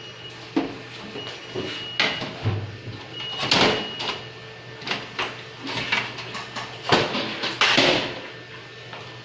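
Sheet-steel side panel of a desktop computer tower being slid off and handled: a run of knocks, scrapes and clatters of thin metal, the loudest knocks near the end.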